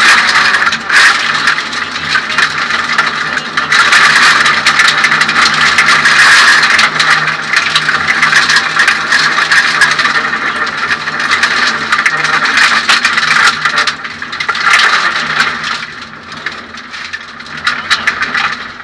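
Inside the stripped cabin of a Suzuki Swift 1600 N2 rally car at speed: the engine runs under a loud wash of road and gravel noise, with constant clattering and rattling. The noise eases off in the last few seconds.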